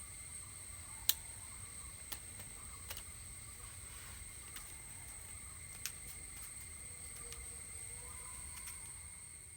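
A few sharp clicks from the aluminium tripod's leg locks and legs being handled, the loudest about a second in, over a steady high-pitched whine and low rumble.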